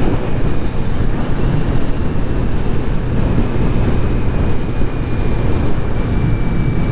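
Riding noise from a Kawasaki Ninja 400 at road speed: wind rushing over the microphone with the parallel-twin engine running underneath, a loud, steady din.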